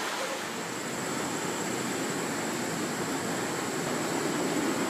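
Steady outdoor background noise: an even hiss with no distinct events and no clear voices.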